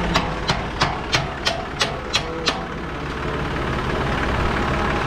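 An engine idling steadily, with a run of about eight sharp knocks, roughly three a second, over the first half.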